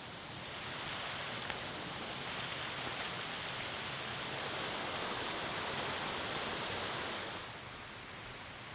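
Steady rush of running water, growing louder about half a second in and falling back near the end.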